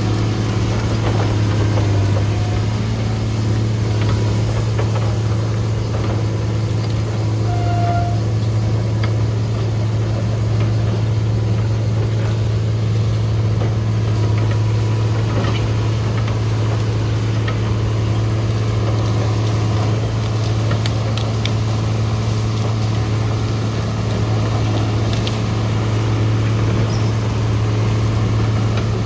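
John Deere motor grader's diesel engine running steadily, a constant low drone with a few faint clicks and rattles over it.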